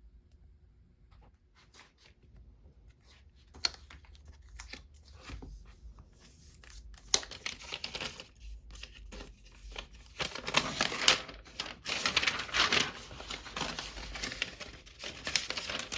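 Protective wrapping being peeled and crinkled off a new iPad, with a few scattered rustles and clicks at first, then a longer stretch of dense tearing and crinkling in the second half.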